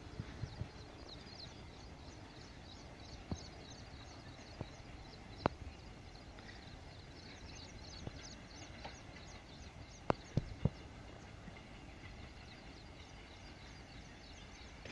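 Faint outdoor ambience: small birds chirping high and fast over a low rumble, with a few sharp clicks, the loudest about five and ten seconds in.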